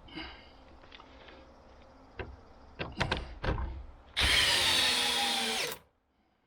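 A few sharp knocks, then a power drill runs under load for about a second and a half, its pitch sagging slightly, and stops abruptly.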